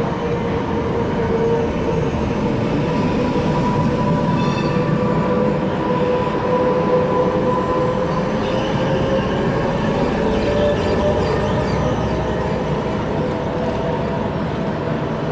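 City trams rolling past close by on street track: a steady rumble of wheels on rails with a sustained whine that drifts slightly in pitch, as one tram follows another past.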